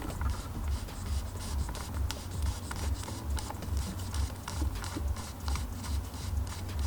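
Irregular light clicks and scrapes of a hand tool working the captive T30 Torx bolts that hold a steering-wheel airbag, over a low hum that pulses about twice a second.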